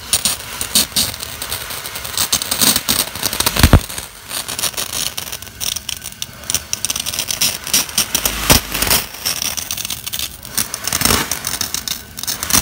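Loud, irregular mechanical rattling and clattering over a steady hiss, with two heavy thumps, one about four seconds in and one about eight and a half seconds in.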